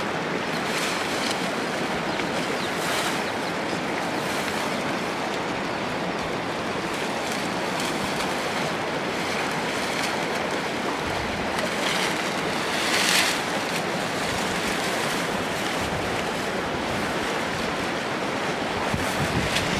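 Leafy branches rustling and swishing as they are handled and heaped onto a thatched shelter: a steady dense rustle with a few louder, crisper swishes, the sharpest about thirteen seconds in.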